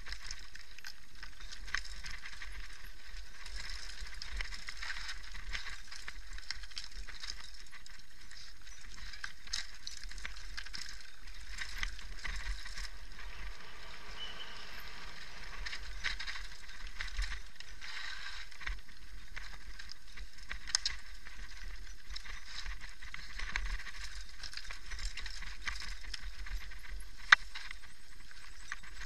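Mountain bike descending a loose, stony dirt trail: a steady crunch and rattle of tyres and bike over gravel and stones, with scattered clicks and one sharp knock a couple of seconds before the end.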